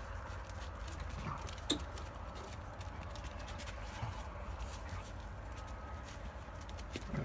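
Two young Tibetan Mastiffs play-fighting: scuffling and paw clicks on paving, with a few short growls and whimpers and one sharp yelp-like cry about a second and a half in.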